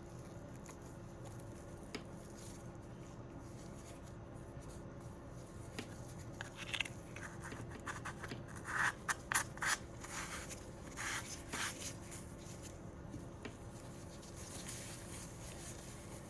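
Hands handling packaged products: a run of short rustling and scraping sounds about halfway through, thickest around the middle, over a low steady room hum.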